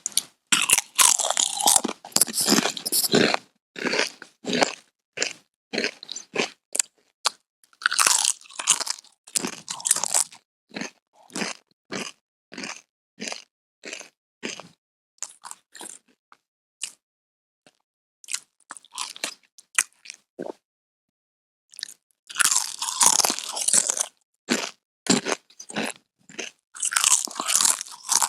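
Chips being bitten and chewed: loud dense bursts of crunching at each fresh bite, about four of them, with steadier chewing crunches at about two a second in between and a pause of a few seconds past the middle.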